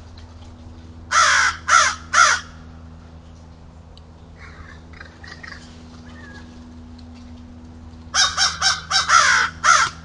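Harsh, loud bird calls: three calls about a second in, a few fainter calls in the middle, then a quick run of about six calls near the end. A steady low hum runs underneath.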